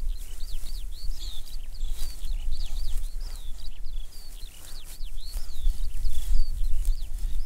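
A small songbird singing a rapid, unbroken run of short, high chirps and trills, with a low rumble of wind on the microphone underneath.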